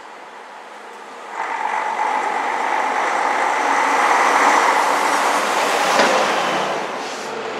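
Vintage coach driving past at close range. Its engine and drivetrain come up suddenly, grow louder as it approaches, then ease off as it goes by, with a brief knock as it draws level.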